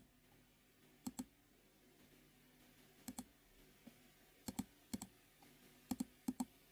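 Computer mouse clicks, about six of them, most in quick press-and-release pairs, at uneven intervals, as stones are placed or moves stepped through in a Go board program.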